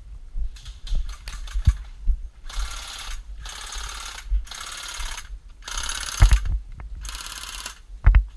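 Airsoft rifle fire: a quick string of shots, then five full-auto bursts of about a second each, fired in fast rattling strings. A couple of heavy low thumps come near the end.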